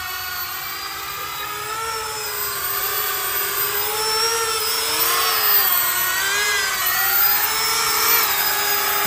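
Four 70 mm electric ducted fans on a 3D-printed drone whining in flight, several pitches wavering up and down together as the throttle shifts. It grows louder about halfway through as the drone comes in low and close.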